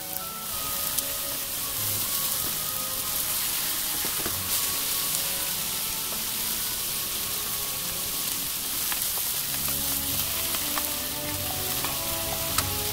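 Beef-and-asparagus rolls sizzling steadily in hot oil in a nonstick frying pan, with a few sharp clicks scattered through.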